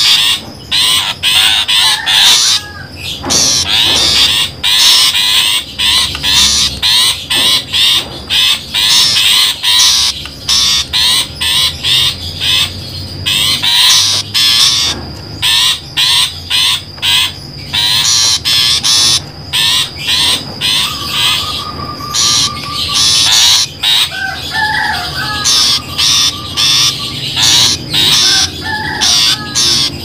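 Long-tailed shrike (pentet) calls played as a trapping lure: harsh, rapid chattering in many short bursts with brief gaps. A few softer warbling phrases come in about two-thirds of the way through.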